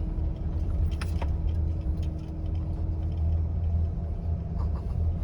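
Steady low rumble of a vehicle moving along the road, with a few faint clicks.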